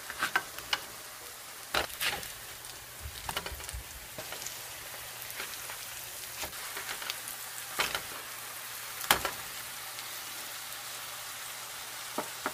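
Potato and ground-beef patties sizzling in shallow oil in a nonstick frying pan, a steady hiss. A spatula taps and scrapes against the pan several times as the patties are turned, the loudest knock about nine seconds in.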